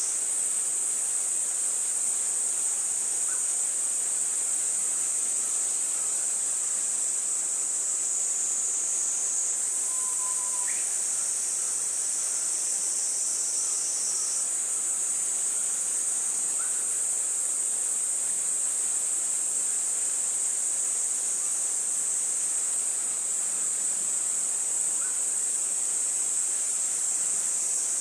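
A steady, high-pitched chorus of insects that never pauses, with a few faint short chirps here and there.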